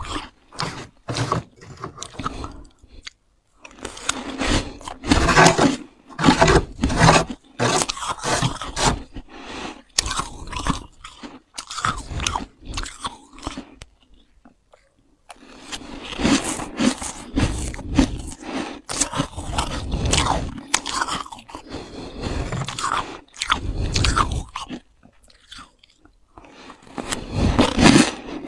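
Freezer frost being chewed: loud, close crunching in mouthful after mouthful, with short pauses between bites.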